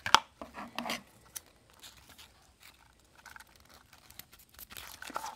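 Ribbon and a ribbon spool handled by hand: a sharp tap just after the start, then light rustling and small clicks.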